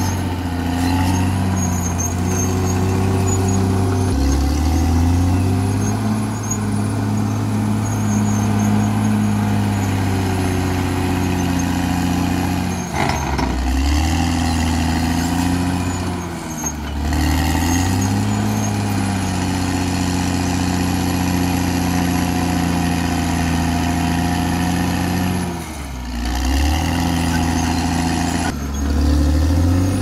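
Caterpillar D6R XL bulldozer's diesel engine running as it works, its revs dipping briefly and picking back up about four times, with a thin high whine above the engine.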